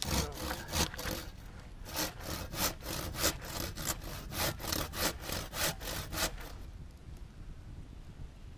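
Hand saw cutting through firewood in quick back-and-forth strokes, about three a second, stopping about six and a half seconds in.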